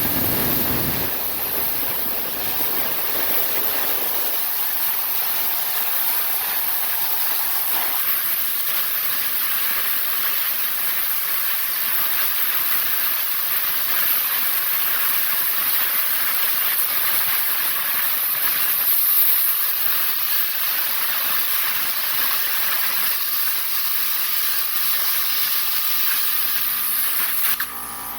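60 amp plasma cutter hissing steadily as it cuts, with the arc and air jet making a loud, high hiss. The hiss cuts off suddenly near the end when the torch is released.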